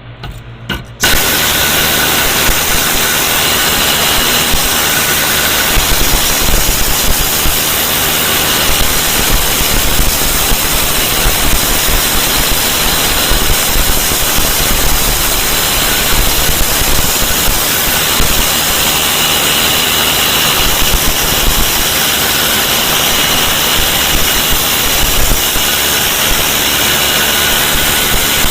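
A tool for stripping rust scale starts with two short blips about a second in, then runs loud and steady with a dense hissing noise.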